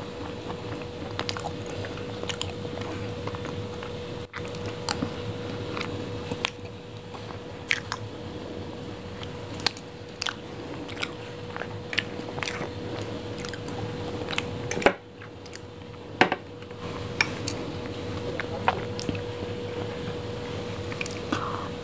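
Close-miked eating sounds: chewing and mouth sounds on soft chocolate lava cake, with sharp clicks from the mouth and the metal spoon scattered throughout and a few louder ones past the middle, over a steady faint hum.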